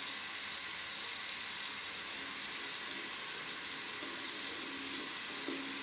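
Bathroom washbasin tap left running, a thin stream splashing steadily into the basin as a child washes his hands.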